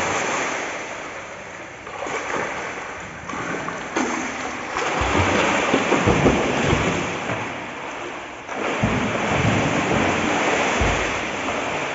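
Water splashing in a swimming pool, a steady rush that swells and eases, with low thuds in the second half.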